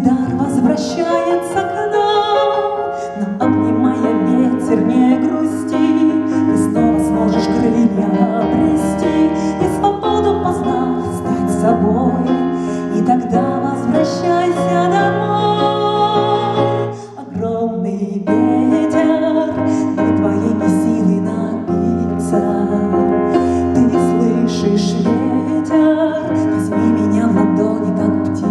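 Music: an instrumental passage of a song, with piano, dropping briefly about seventeen seconds in.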